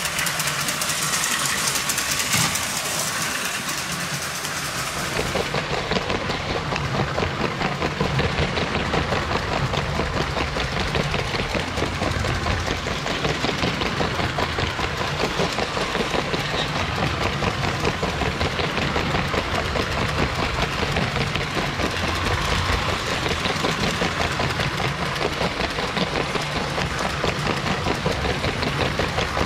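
LEGO 12-volt train motors running and their wheels rolling over plastic track: a steady, fast mechanical rattle over a low hum.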